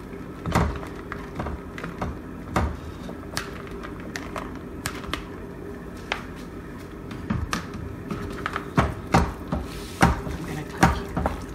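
Cooked macaroni tipped from a plastic colander into a metal pot, the colander knocking on the pot's rim. Then a wooden spoon knocks and scrapes against the pot as the noodles are stirred into cheese sauce, the loudest knocks coming near the end.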